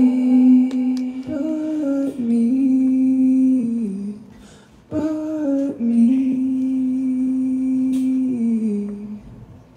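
A singer's voice holding long, steady notes in two phrases, each stepping down in pitch at the end, with a brief drop between them, over a faint steady backing.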